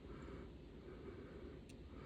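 Quiet room tone with soft, regular breathing about once a second, and two small clicks near the end.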